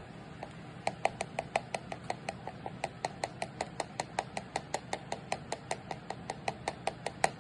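Rapid, evenly spaced tapping of a plastic glitter container as glitter is shaken into an open water bottle, about six light, slightly ringing taps a second, starting about a second in.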